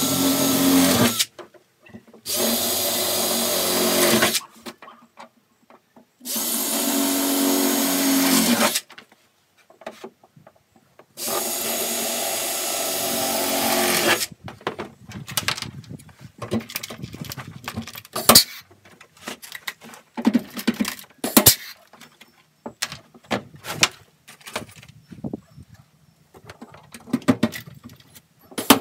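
Power drill boring holes through a plastic truck bed liner for rivets: four separate runs of the motor, each two to three seconds long and getting a little louder toward its end. After that, scattered short clicks and knocks, with one sharp loud one at the end.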